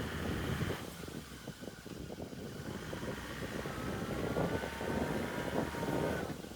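Off-road vehicle engine running during a creek-bed recovery, an uneven rumble with a faint whine that wavers up and down.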